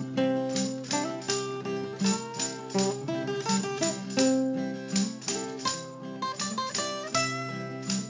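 Background music: a plucked-string instrumental melody of quick picked notes that ring and fade, several to the second.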